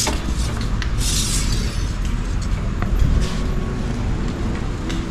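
Engine oil dipstick being pulled and handled: short bursts of rustling near the start and about a second in, and a few light clicks later, over a steady low rumble.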